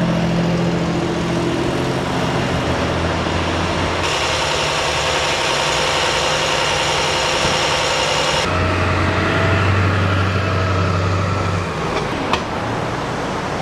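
Idling diesel engines of fire-rescue trucks running steadily. The hum shifts abruptly a few times, and there is a single sharp click near the end.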